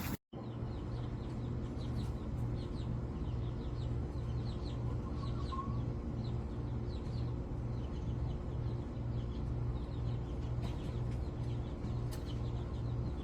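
Birds chirping over and over in short, quick falling notes, over a steady low hum that pulses about twice a second.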